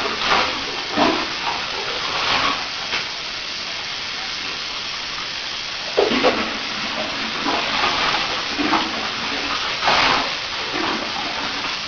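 Bath water running and splashing in a tub while a dog is washed, a steady wash of water broken by several short, louder splashes.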